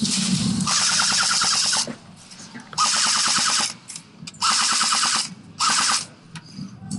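Airsoft electric gun firing on full auto in four bursts of rapid shots, the first about two seconds long and the others shorter.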